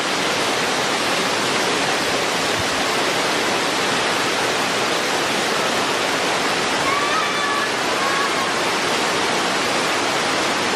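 Waterfall's falling water rushing steadily and loudly, with no letup.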